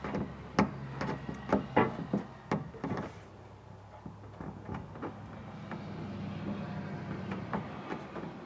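Side snips clicking and scraping on a hose clamp tab as it is bent straight: a run of sharp clicks over the first three seconds, a few more near the end, with a low steady hum underneath.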